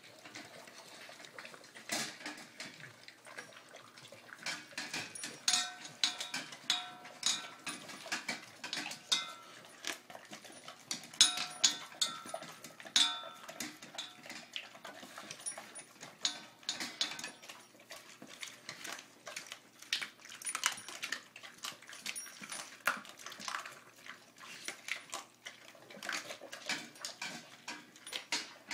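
Dogs eating raw chicken from stainless steel bowls: irregular chewing and crunching, with the metal bowls clanking and briefly ringing on their wire stand, the clanks busiest in the middle stretch.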